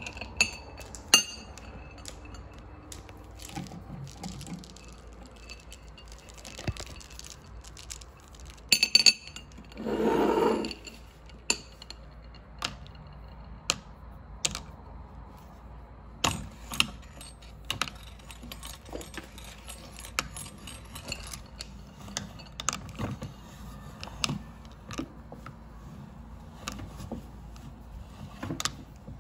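Hand-cranked metal meat grinder working on hard gumballs: irregular clinks and clicks as the candy balls knock about in the metal hopper and crack in the auger, with a louder grating noise lasting about a second near ten seconds in. A few bright clinks of gumballs on a ceramic plate come at the start.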